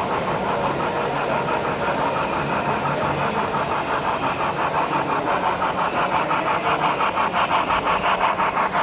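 HO-scale Union Pacific 844 4-8-4 steam locomotive model's sound decoder chuffing in a steady, quick rhythm as it runs past, about four chuffs a second, the beats growing more distinct near the end, over the rumble of the train on the track.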